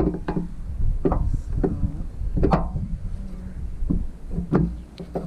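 Wind buffeting the microphone with a steady low rumble, and about eight scattered knocks and taps as parts are handled on the van roof.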